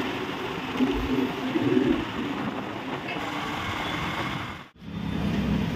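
Wind and road noise from a moving scooter, with the sound of city traffic around it. The noise cuts out suddenly for an instant near the end, then carries on.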